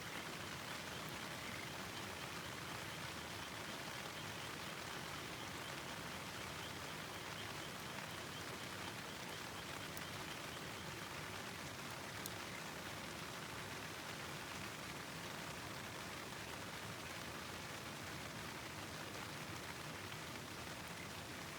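Steady, even rushing of water, from a river and rain, with no pauses or swells. A couple of faint snaps stand out about halfway through.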